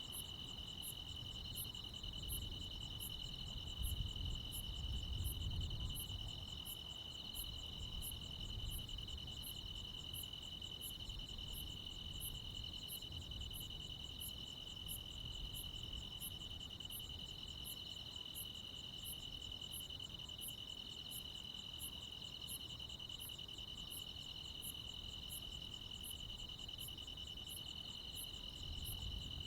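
Night chorus of crickets and other insects: a steady high trill under a very high chirp repeating about twice a second. A low rumble swells briefly a few seconds in.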